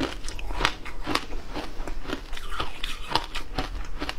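Shaved ice being crunched and chewed in the mouth, picked up close by a clip-on microphone: a quick, uneven run of crisp crunches, several a second.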